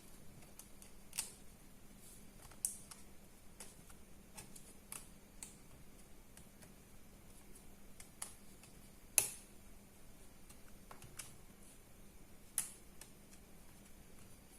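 Scattered sharp clicks and light taps of laptop parts and small tools being handled while the laptop is put back together, four louder clicks among many faint ticks, the loudest about nine seconds in.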